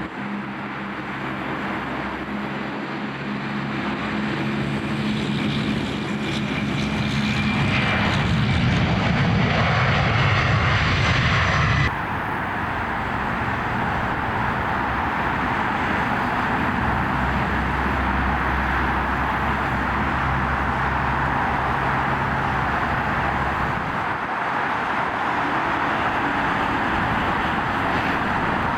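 A Boeing 767 freighter's twin jet engines on departure, getting louder with a whine that slides in pitch. Then an abrupt cut about twelve seconds in, and the steady drone of a Beechcraft 1900's twin PT6A turboprops on arrival.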